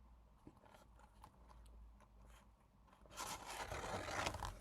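Pages of a large photo book being handled and turned: faint ticks of handling, then a papery rustle of a page turning about three seconds in.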